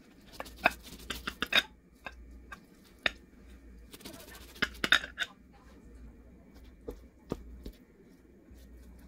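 Serrated knife sawing through a baked cheese-topped pie and clicking and scraping against its glass pie dish, in two clusters about a second in and around four to five seconds in, with a few single clicks between and after.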